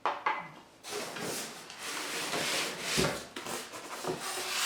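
Cardboard box and packing material rubbing and scraping as a monitor is unpacked by hand, with a sharp knock just after the start.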